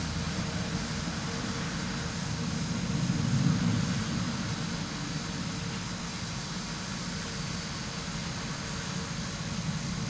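Low, steady rumble heard through a window pane, swelling briefly about three seconds in and then settling back.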